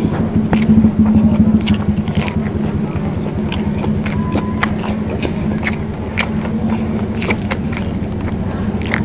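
Close-up eating sounds: chewing, with frequent wet mouth clicks and smacks, over a steady low hum.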